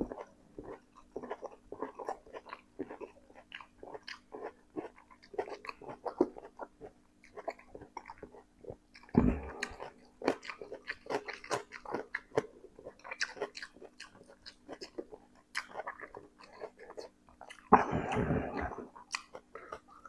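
A man chewing a mouthful of spicy instant noodles close to the microphone, with many quick wet mouth smacks and clicks. Two longer, louder noisy sounds break in, about nine seconds in and near the end.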